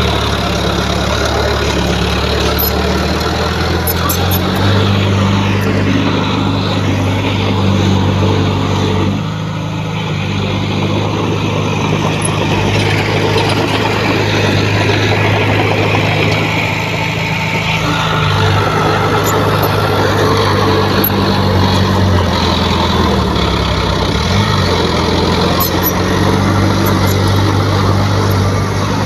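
Heavy diesel engine of earthmoving equipment running steadily, with a brief dip in level about nine seconds in and a short change in pitch near the end.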